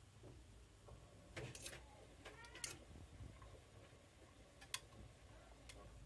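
AEG Lavamat front-loading washing machine with an inverter motor, drum turning slowly through the wash and barely audible: a faint low hum with a few light ticks and taps and a short squeak just after two seconds.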